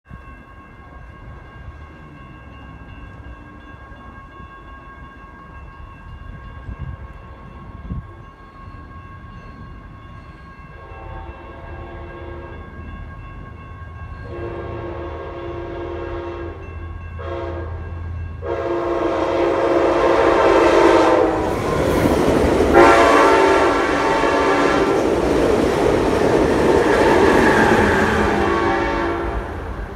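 Locomotive horn sounding the long, long, short, long grade-crossing pattern as the train approaches, the final blast held long and loud. Under it the rumble of the oncoming train grows steadily louder.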